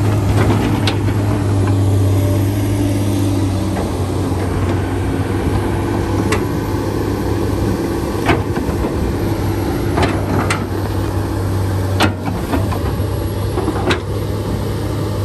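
A motor running steadily with a low, even hum, with several short sharp clicks scattered through.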